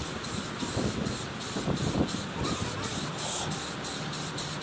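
Spray can of primer hissing in a run of short bursts, the nozzle pressed and let go again and again, with wind rumbling on the microphone.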